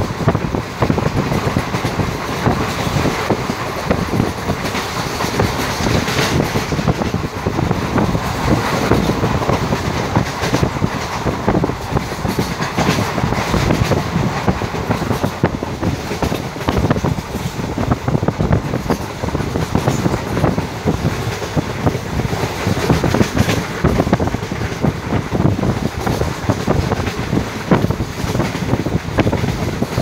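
Passenger express coaches running at speed: steady wheel-on-rail rumble with a continuous clickety-clack of wheels over rail joints, heard through an open coach window or door.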